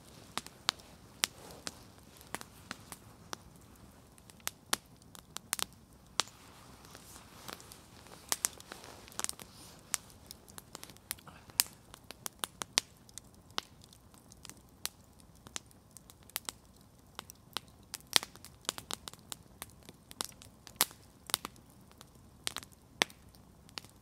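Wood campfire crackling, with irregular sharp pops of burning wood, one to a few each second, over a faint steady hiss.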